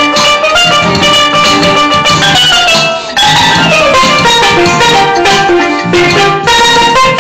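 Steel pan (steel drum) struck with mallets, playing a quick melody of ringing notes. About three seconds in there is a brief break, then a falling run of notes.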